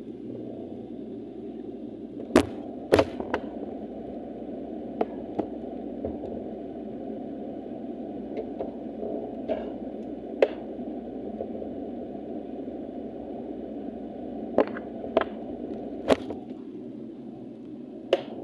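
Steady hum of a freezer heard from inside it, with a handful of sharp clicks and knocks scattered through it.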